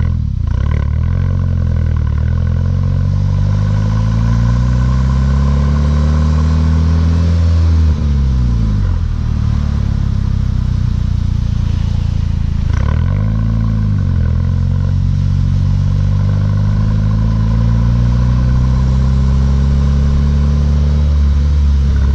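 Mk6 Volkswagen GTI's 2.0-litre turbocharged four-cylinder engine heard through a Beluga aftermarket exhaust while accelerating. Its pitch climbs slowly, drops sharply about eight seconds in and again about thirteen seconds in, as with upshifts, then climbs again.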